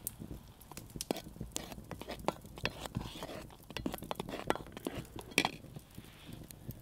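A spoon clinking and scraping against a small metal pot as soup is stirred over a campfire: irregular sharp clicks, with one louder clank about five seconds in.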